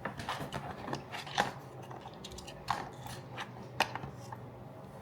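Handling noise of a DEKOPRO 8V cordless drill being lifted out of its tool kit box: scattered light clicks and knocks, the sharpest about a second and a half in and near four seconds.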